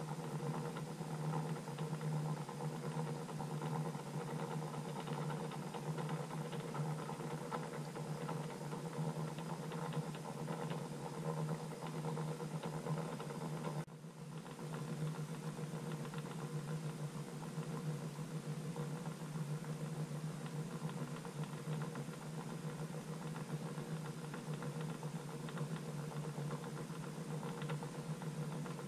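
Small electric motor of a rotating display turntable running with a steady hum. The sound dips briefly about halfway through.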